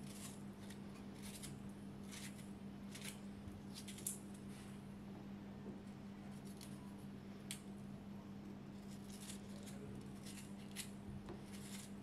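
Kitchen knife cutting through ripe tomatoes held in the hand: a series of irregular, crisp little snips as the blade slices the skin and flesh, with a steady low hum underneath.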